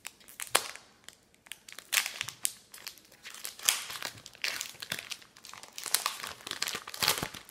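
Foil Pokémon card booster pack wrapper crinkling and crackling irregularly as it is handled and torn open by hand.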